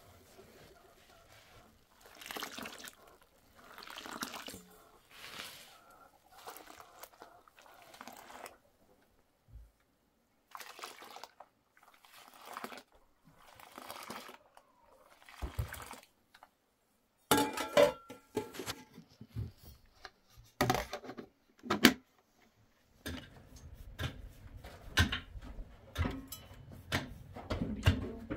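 Water sloshing and pouring in a series of short splashes, with brief pauses between them; sharp clattering knocks near the end.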